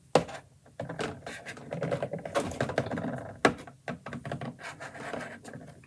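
Small plastic figures being handled: a quick run of light clicks and taps, with a few sharper knocks.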